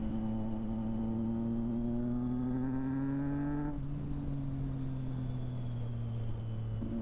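Triumph Street Triple 765 RS inline-three engine with a Delkevic aftermarket exhaust, pulling under throttle with rising revs. About halfway through, the throttle shuts and the note drops back as the revs slowly fall. Just before the end it comes back on the throttle.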